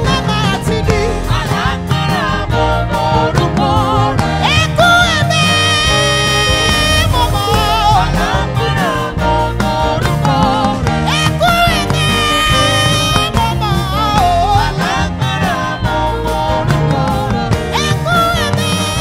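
Live gospel music: women's voices singing, a lead with backing singers, over a band with drums, a few notes held long.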